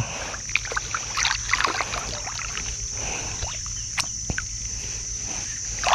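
Water splashing and dripping with light knocks as a fishing set line is pulled in by hand from a small boat, over a steady high-pitched whine. There are a couple of sharper knocks about four seconds in.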